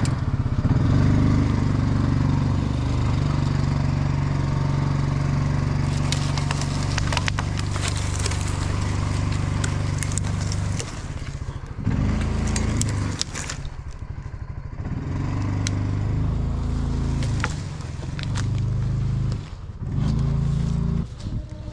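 Coleman UT400 UTV engine running as the machine backs up under load, its pitch and level rising and falling and dipping twice. About six to thirteen seconds in, crackling and scraping of branches and brush sound over it.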